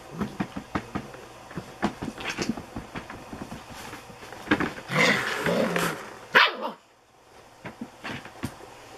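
Aussie labradoodle puppies play-fighting: scuffling and small knocks throughout, with a burst of puppy barks and growls about five seconds in that ends in one sharp, loud sound.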